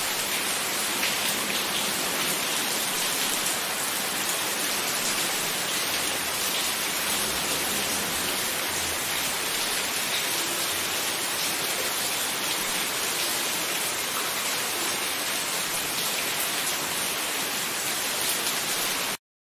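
Steady rain falling, a dense even hiss of many drops, which cuts off suddenly near the end.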